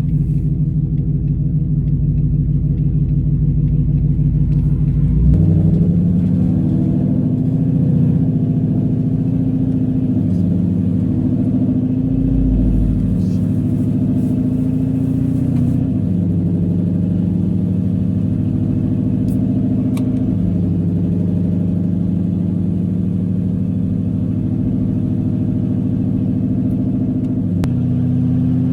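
A modified Ford Mustang GT's 5.0 V8, running loud through an aftermarket exhaust while driving. It makes a steady low drone whose pitch steps a few times as the engine speed changes.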